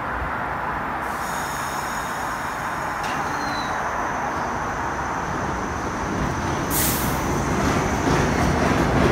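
New York City Subway R62A train running on elevated track: a steady rumble that grows louder, with a thin high whine or wheel squeal over it and a short hiss about seven seconds in.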